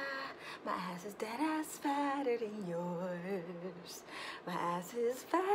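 A woman singing softly without accompaniment, a few drawn-out lines with long held notes that waver in pitch.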